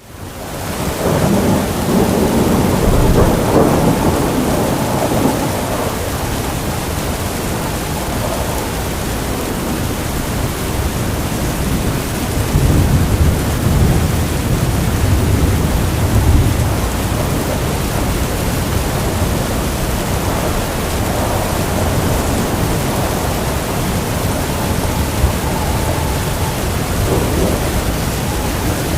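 Heavy rain pouring steadily, with deep rolling thunder that swells a second or two in and again about halfway through. The sound fades in at the very start.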